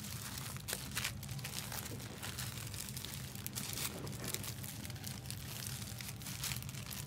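Trading-card pack wrappers crinkling and rustling in irregular bursts as packs are handled and torn open, over a steady low hum.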